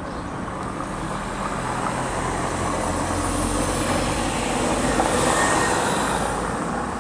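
A motor vehicle passing: a low engine rumble and road noise that grow louder, peak about five seconds in, then fade.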